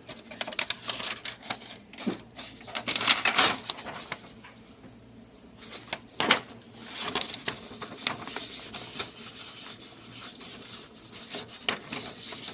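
Irregular clicking, scraping and rubbing of parts being handled on an HP LaserJet P4015n laser printer, with a sharper knock about six seconds in.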